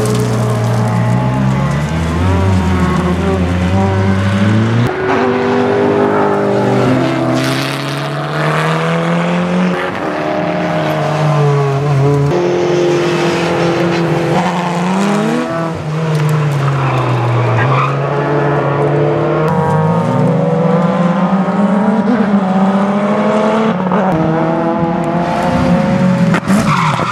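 Race car engines at full throttle on a circuit, pitch climbing and dropping again and again through gear changes, at times two cars heard at once.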